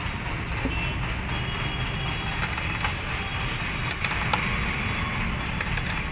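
A steady low rumble, with a few light metallic clicks as a small open-end spanner tightens the nut holding an indicator to a motorcycle's plastic headlight visor.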